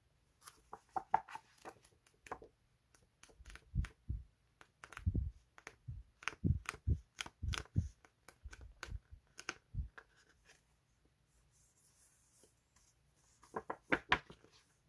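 Paper label sticker sheets handled by hand: crisp rustling and crackling as the sheets are spread out and a pad of them is flipped through, with a few soft thuds as they are laid down. A quiet stretch comes before a last short burst of paper rustling near the end.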